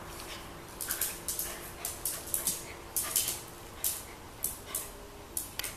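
A dog's claws clicking and skittering on a tile floor as it bounces around in play: about fifteen sharp clicks at an uneven pace, starting about a second in.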